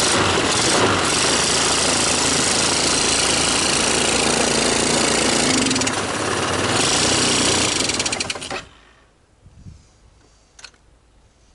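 2008 Wildfire 300 4x4 ATV engine running loudly just after starting, sounding healthy, then shutting off suddenly about eight and a half seconds in.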